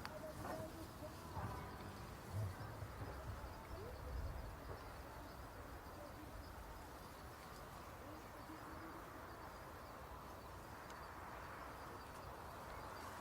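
Faint outdoor crowd ambience with distant, indistinct voices, and a few soft low thumps in the first few seconds.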